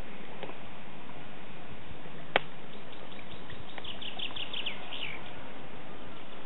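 Small twig fire crackling, with one sharp pop a little over two seconds in. A songbird sings a quick run of short falling notes about four seconds in.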